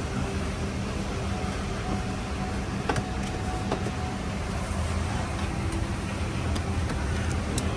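Steady low cabin hum of a parked Boeing 777-200ER with its cabin air running, with a few faint clicks.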